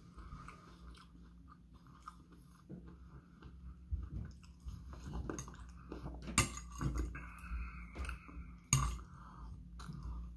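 Close-up chewing and mouth sounds of someone eating, with a metal fork scraping and clicking against a dinner plate; the sharpest clicks come about six and a half and nearly nine seconds in.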